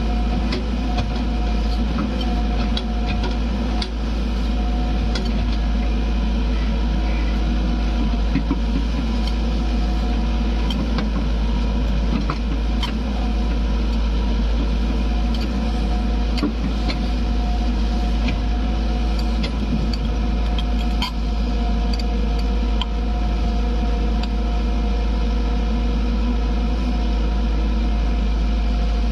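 Tata Hitachi ZAXIS 140 excavator's diesel engine running steadily as the machine works, with scattered sharp clicks and clanks.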